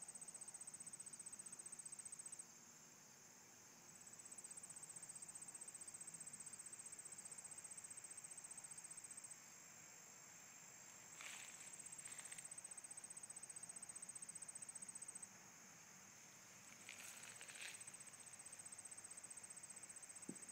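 Faint, high-pitched insect trill in long bouts of several seconds that break off briefly and start again. Two brief soft rustles come through, about halfway through and again later.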